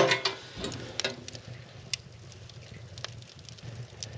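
A woodstove's door is handled with a loud knock and brief creak at the start and another knock about a second in. Then the wood fire in the open firebox crackles with small, sharp, scattered pops as a log and crumpled paper burn.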